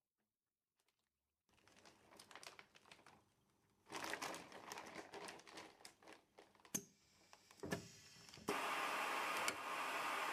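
Clear plastic bag crinkling and rustling as hands smooth it into place, then a few sharp clicks. About eight seconds in, a steady rushing noise starts abruptly: the Audion Magvac 1020 MV vacuum sealer drawing the air out of the bag.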